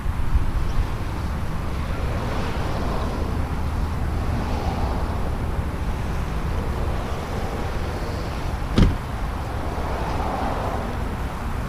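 Delta MD-80's Pratt & Whitney JT8D engines at takeoff power during the takeoff roll, heard from across the airfield as steady jet noise. A single sharp knock cuts in about nine seconds in.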